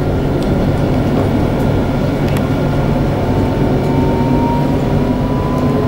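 Tram running along its track, heard from inside the driver's cab: a steady rumble with a faint electric motor whine that rises slightly in pitch in the second half as the tram picks up speed.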